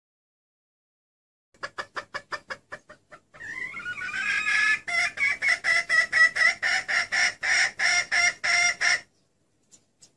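Red junglefowl hen calling. A quick run of about ten short clucks comes first. From about three and a half seconds in, a louder, rapid cackle follows, about four notes a second for some five seconds, and it stops abruptly.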